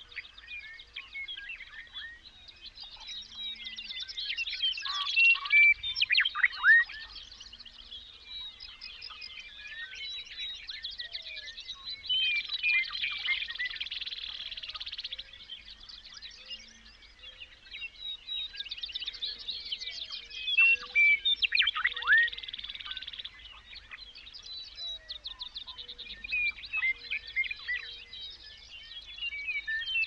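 A chorus of several songbirds chirping and trilling over one another. It is loudest around a quarter of the way in and again about two-thirds of the way through, where strong whistles slide steeply downward.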